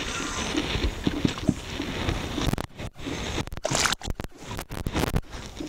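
A spinning reel being cranked as a small pike of about 200 g is wound in to the boat. From about two and a half seconds in, the fish thrashes at the surface with a run of sharp splashes.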